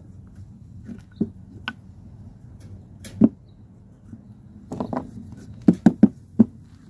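Small wooden blocks and a wooden board handled: scattered sharp knocks and clacks of wood on wood, with one loud knock about three seconds in and a quick run of knocks near the end.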